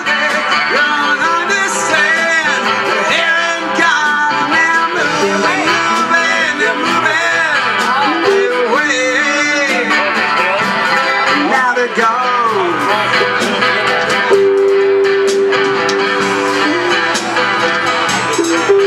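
A live band plays a country-blues song: acoustic and electric guitars over a drum kit, with a lead line that bends in pitch. About two-thirds of the way through, one long note is held.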